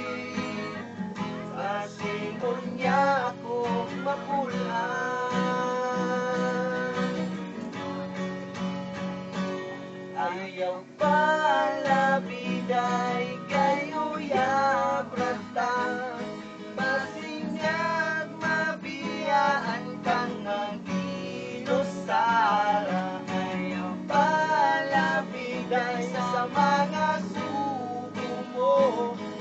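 Acoustic guitar strummed steadily, with a man's voice singing along at times.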